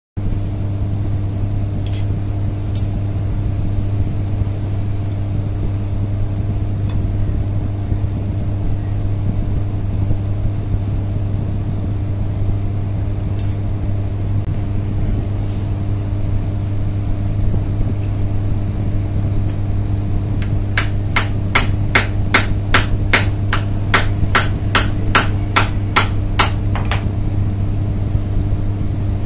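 A run of about twenty quick metal taps, about three a second, as a tool is knocked against a motorcycle disc-brake caliper with a seized piston. The taps begin about two-thirds of the way in, over a steady low hum.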